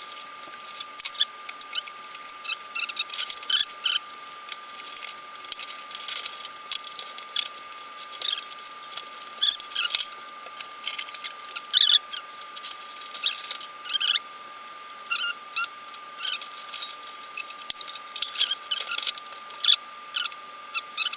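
Irregular short high squeaks and clicks from bike parts and packaging being handled during assembly, over a steady faint high-pitched tone.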